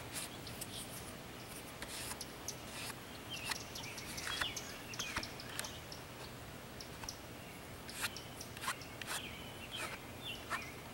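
Birds giving short high chirps, some sliding downward, scattered through, among many quick sharp clicks; no thunder is heard.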